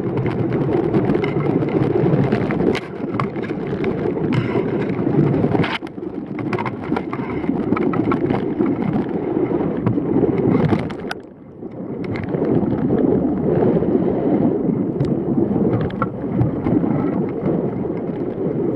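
Strong wind buffeting the microphone over water rushing and splashing past the hulls of a Hobie Tiger catamaran sailing fast in about 25 knots. Scattered sharp knocks come through, with a brief lull about eleven seconds in.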